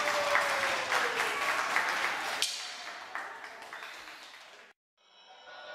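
Audience applause, dense clapping that fades steadily away and cuts off about four and a half seconds in. After a brief silence, music starts near the end.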